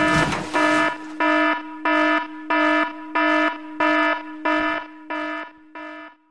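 Electronic alarm sound effect: a pitched beep repeating steadily about one and a half times a second, growing fainter near the end. A short rushing noise runs under the first beep.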